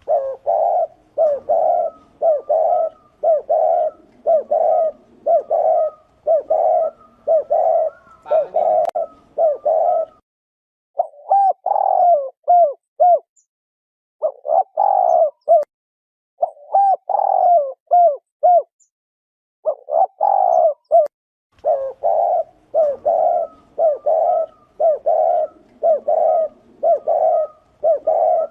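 Spotted dove cooing over and over: a long run of short, repeated coos, about one and a half a second, broken by a few short pauses about ten, thirteen and nineteen seconds in.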